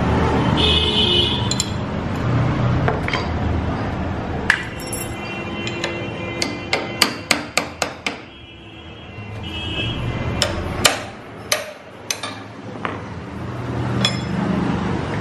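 Hammer blows on a ring spanner to break loose a stuck left-hand-thread gearbox nut on a Royal Enfield cast-iron engine: a single sharp metallic strike, then a quick run of about eight, then a few more spaced out.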